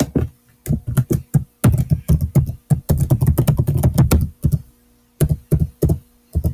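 Computer keyboard being typed on: a fast, dense run of keystrokes in the middle, then slower, separate keystrokes near the end.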